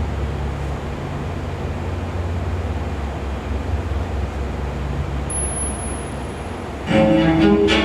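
Steady rumbling noise, heaviest in the low end, with no clear rhythm or tone. About seven seconds in, bowed strings with a cello-like low line come in over it.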